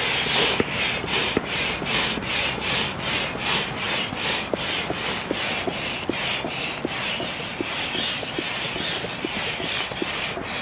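A manual air pump inflating an air tent's inflatable beams: a rushing of air with every stroke, evenly repeated at about three strokes a second.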